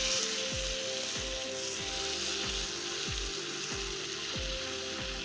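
Marinated mutton pieces sizzling in hot oil with fried onions, the sizzle starting suddenly as the meat hits the pan and holding steady while it is stirred. A steady background music beat runs underneath.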